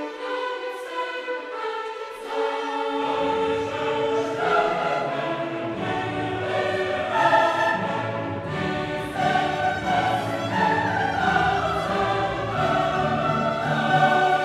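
Classical choral music: a choir singing with an orchestra, the low voices and instruments coming in about three seconds in.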